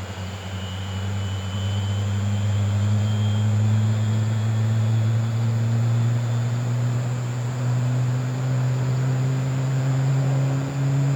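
Jet engines of a Boeing 777 BBJ running, a loud low hum that slowly rises in pitch, swelling over the first couple of seconds and then holding steady.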